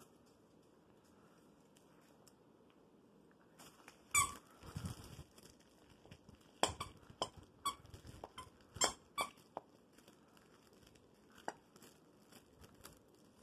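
Squeaker in a plush dog toy squeaking as a Vizsla puppy chews it. After about four seconds of quiet, it gives a string of short, sharp squeaks at uneven intervals.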